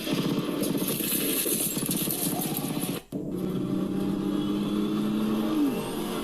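Small HP S5000 desktop speakers playing a DTS surround-sound effects test clip: rapid clattering for about three seconds, a brief cut, then a steady engine-like drone that drops in pitch near the end.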